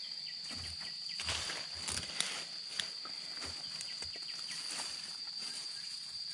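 A steady, high-pitched insect drone, like crickets or cicadas, runs throughout, with scattered rustling and a few light knocks in the first half, like someone moving through the undergrowth.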